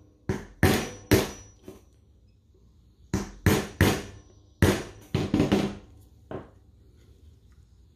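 Small hammer tapping a punch against a Sig P365 pistol's parts: sharp metallic taps, a quick group of about four, a short pause, then a longer run of about eight more, each with a brief ring.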